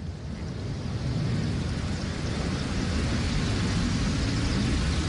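Steady low rumble with a hiss over it, outdoor background noise with no distinct strike or click.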